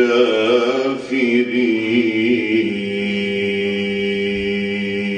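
A man reciting the Qur'an in the melodic tilawah style, weaving ornamented turns in pitch, then holding one long steady note that stops just before the end.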